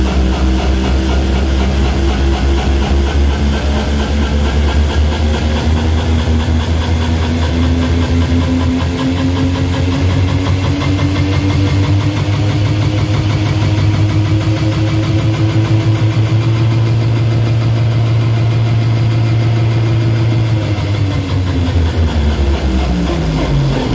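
Hardstyle/hardcore music over a loud sound system: a heavy, engine-like droning bass with a tone that slowly rises, then swoops down in pitch over the last few seconds.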